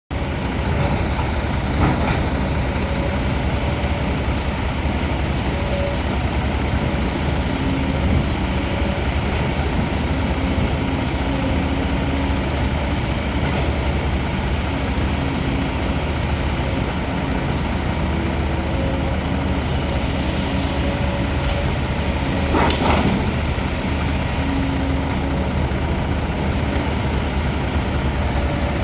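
Excavator's diesel engine running steadily under load. A sharp knock comes about two seconds in, and a louder knock about three quarters of the way through.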